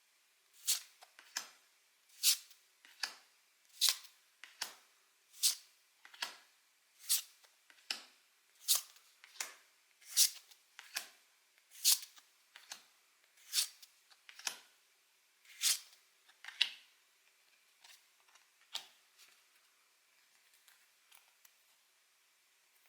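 Trading cards being handled one at a time: crisp card clicks in pairs, about one pair every second and a half, falling to a few faint ones near the end.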